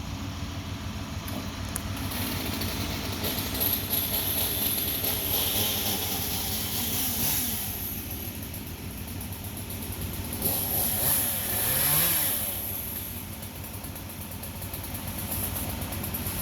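An engine running steadily, swelling louder about eleven to twelve seconds in with a brief rise in pitch.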